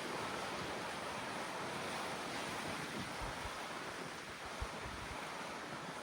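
Wind blowing steadily, with a few brief gusts buffeting the microphone as low rumbles in the second half.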